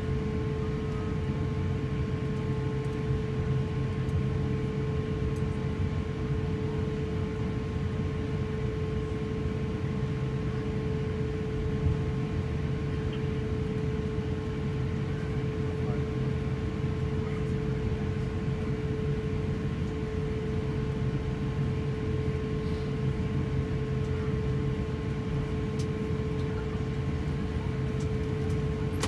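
Steady cabin noise of a jet airliner taxiing: a constant low rumble with a steady droning tone from the idling engines and cabin air system.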